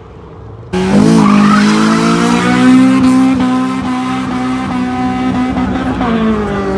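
Car engine held at steady high revs while its tyres skid and squeal, cutting in suddenly about a second in.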